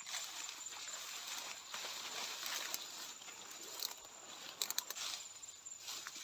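Rustling and crackling of dry grass or leaves, with a short cluster of sharp clicks near the end, over a steady high-pitched insect trill.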